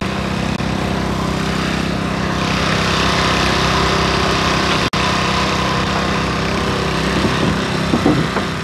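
Small engine of a portable hydraulic power pack running steadily, driving hydraulic rescue spreaders. A harsher hiss joins about two and a half seconds in as the spreaders work on the car's front wing.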